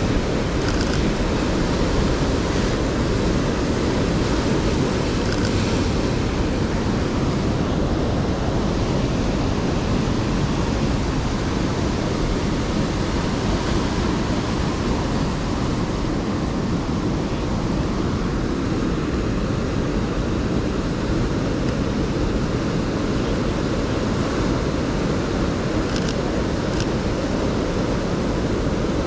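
Heavy ocean surf from a large swell breaking and washing over a boulder shore, a steady low wash of noise, with wind on the microphone.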